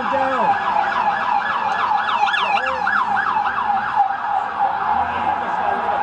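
Emergency-vehicle siren in a fast yelp, its pitch rising and falling about three times a second over steady street noise. The sweeps grow less distinct after about four seconds.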